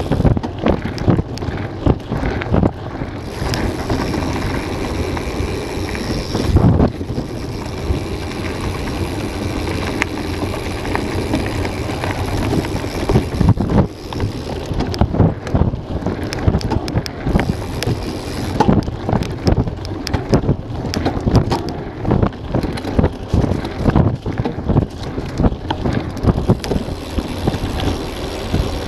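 Wind buffeting the microphone of a camera on a mountain bike riding a dirt trail, over the rumble of knobby tyres on dirt and stones. Frequent knocks and rattles come from the bike jolting over bumps.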